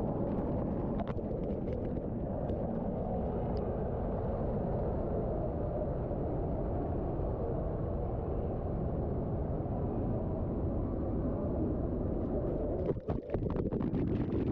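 Hot spring water pouring and splashing down mineral-crusted cave rock, heard up close as a steady rushing noise. A few brief knocks and dropouts come near the end.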